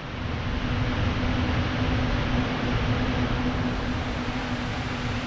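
Electric fans running: a steady rush of air with a constant low hum.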